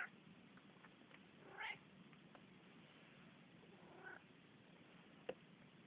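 Manx cat giving three short, soft meows a second or two apart, with a single sharp click near the end.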